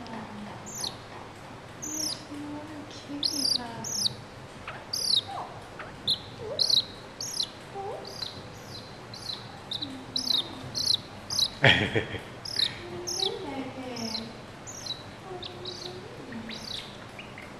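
A young mongoose chirping: short, high, downward-sliding chirps repeated about once or twice a second. A short knock about twelve seconds in.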